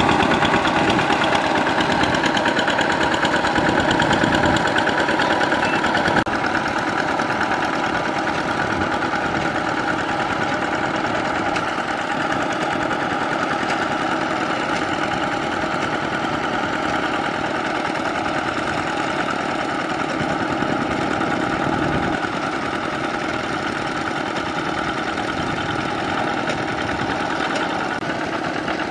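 Kubota RT120 walking tractor's single-cylinder diesel engine running steadily as it drives its cage wheels through paddy mud, with a diesel knock. The level drops slightly about six seconds in.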